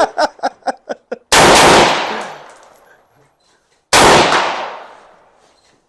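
Two loud rifle shots about two and a half seconds apart, each followed by a long echoing decay across the range.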